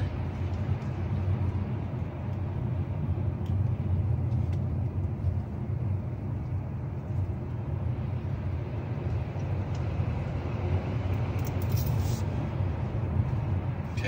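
Steady road and tyre rumble inside the cabin of a 2024 Kia Sportage Hybrid while driving, without the annoying engine noise heard under acceleration. The car is not making that noise at this moment.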